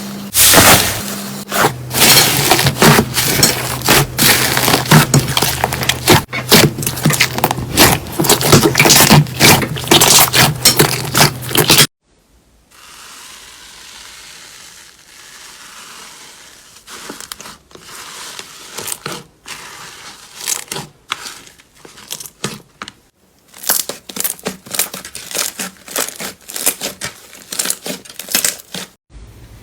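Slime being pressed and squished, giving dense crackling and popping clicks. About twelve seconds in it cuts to a quieter clip with sparser squishy pops, which thicken into crackling again near the end.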